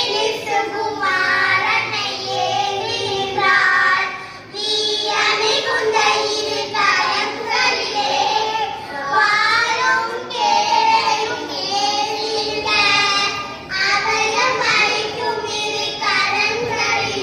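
A group of young girls singing a Tamil devotional song together into microphones.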